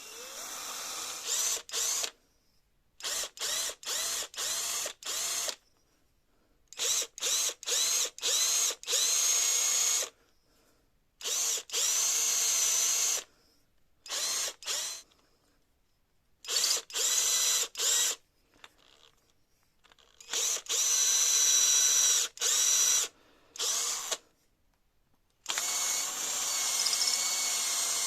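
Small handheld electric power tool, run in about a dozen short bursts, some under a second and some up to about three seconds long. Its motor whine rises in pitch as it spins up at each start and stops abruptly between bursts.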